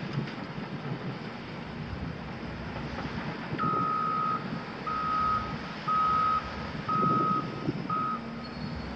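Wheel loader's reversing alarm sounding five single-tone beeps about a second apart, starting a few seconds in, over the low running of diesel engines.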